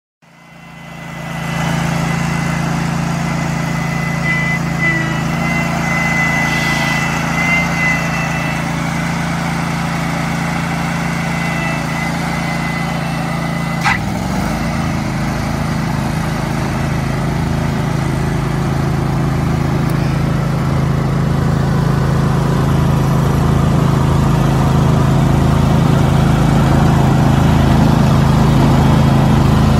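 Toro ProCore walk-behind aerator running steadily, with a thin high whine in the first several seconds. About halfway through there is a click, and the engine settles into a heavier note with a regular pulsing as the slicer tine head works into the green.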